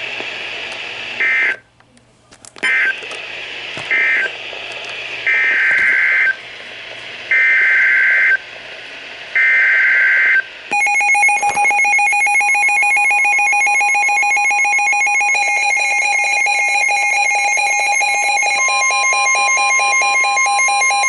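NOAA Weather Radio Emergency Alert System data tones over a weather radio: three short screeching bursts, a brief dropout, then three longer screeching bursts about a second apart, marking the end of one warning and the header of the next. About eleven seconds in, several Midland weather radios set off their alert alarms together, fast beeping at several pitches, joined by a steady alert tone that grows louder near the end.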